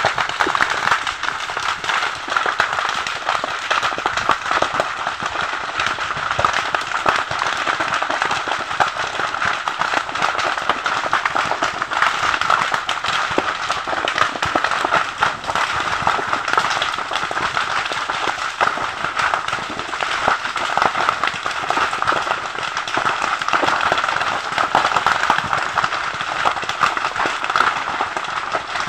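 Brush fire burning through dry undergrowth and vines, crackling densely and without pause.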